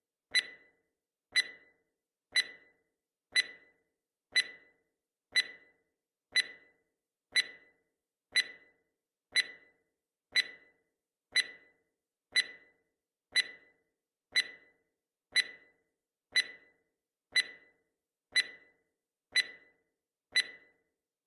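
Countdown timer's clock-tick sound effect: one sharp tick every second, evenly spaced and identical, each dying away quickly.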